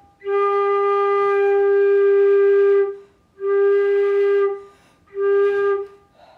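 Concert flute sounding three held notes on the same pitch: one long note of nearly three seconds, then two shorter ones. It is a tone-colour exercise on a single note, first finding the sound and then focusing it.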